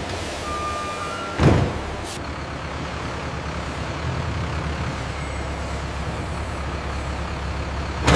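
A heavy truck's engine running steadily, with a couple of short reversing beeps early on. About a second and a half in there is a loud sudden noise, a brief high hiss follows soon after, and another loud sudden noise comes near the end.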